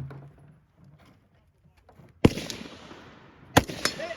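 Rifle shots on an outdoor range: one loud shot about two seconds in with a long echoing tail, then two more in quick succession near the end.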